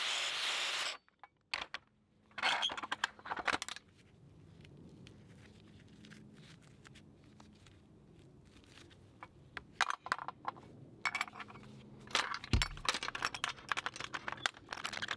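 A steady noise cuts off about a second in, then metal clinks and rattles as a steel auger cutting tooth is handled and reset in a chain vise: a short bout of clinks early, a quiet stretch, and a longer run of clinks near the end.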